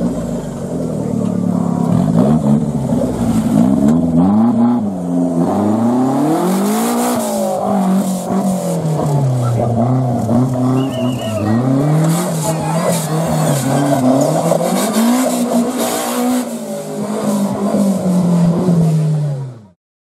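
Engine of a modified off-road 4x4 competition vehicle revving up and down again and again under load as it climbs and crawls over rough dirt, with about six rises and falls in pitch. The sound cuts off just before the end.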